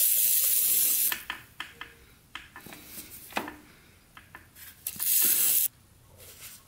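Aerosol penetrating oil (WD-40) hissing out through its straw into an open two-stroke crankcase, one spray of about a second at the start and a shorter second spray about five seconds in. Light clicks and scrapes of a metal tool on the engine fall between the sprays.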